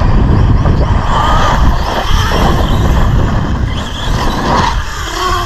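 Arrma brushless electric RC truck running hard on dirt: the motor's whine rises and falls as the throttle is worked, over a loud rushing noise of tyres throwing dirt.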